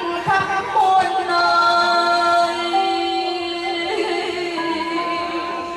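A woman chanting a Vietnamese poem in a sung, drawn-out style. She holds long wordless notes that waver and step to new pitches a few times.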